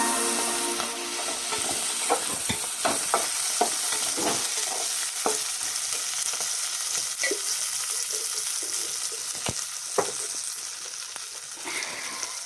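Food frying in hot oil in a pan, a steady sizzle, while a spoon stirs it, clinking and scraping against the pan now and then with two sharper knocks about two-thirds of the way through. The sizzle slowly grows quieter.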